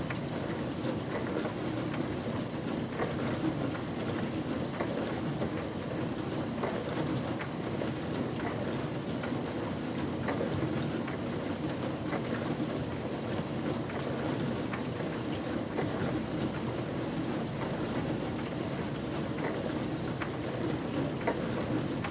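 Older-model dishwasher running a wash cycle: a steady churning of sprayed water, with small irregular clicks and taps scattered through it.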